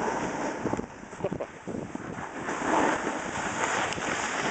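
Wind rushing over a handheld camera's microphone while riding down a ski slope. It swells and eases, with a few short knocks about a second in.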